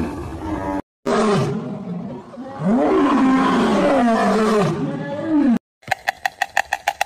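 Male lion roaring and growling in several deep, rising-and-falling calls. It follows the end of a calf's moo and a short gap, and after another short gap a fast, even clicking starts near the end.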